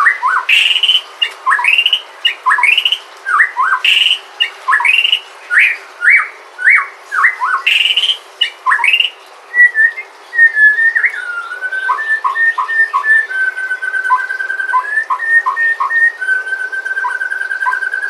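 White-rumped shama (Sumatran murai batu) singing. A run of quick falling whistles, about two a second, gives way halfway through to level whistled notes mixed with short chips. It ends in a long, held, wavering whistle.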